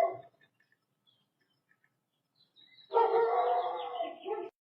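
A dog giving long, drawn-out cries: one trails off just after the start, and another about three seconds in lasts roughly a second and a half.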